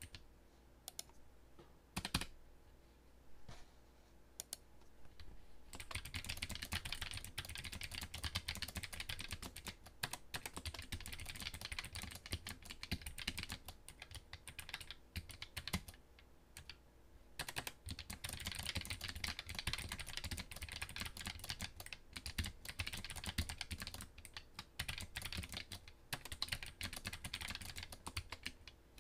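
Typing on an RK Royal Kludge RK925 foldable mechanical keyboard: a few separate key presses at first, then fast continuous clacking of the keys, with a brief pause about two-thirds of the way through.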